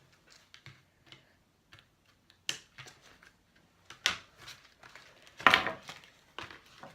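Scattered clicks, taps and rustles of toy packaging being handled as a doll is worked out of its box. Three louder sharp sounds come about two and a half, four and five and a half seconds in; the last is the loudest and longest.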